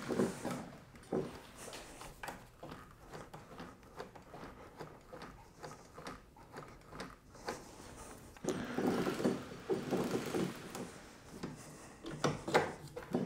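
Shifter kart drivetrain clicking and ticking as the rear wheel is turned by hand, with the CR125 gearbox in neutral and the engine off. A busier stretch of clicking and rattling comes about two thirds of the way through.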